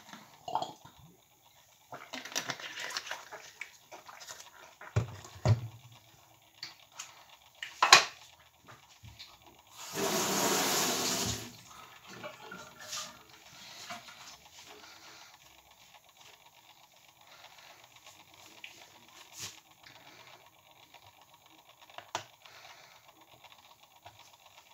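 Knocks and clatter on a kitchen counter, the sharpest about eight seconds in. Then a kitchen tap runs briefly, for about a second and a half, followed by faint handling sounds.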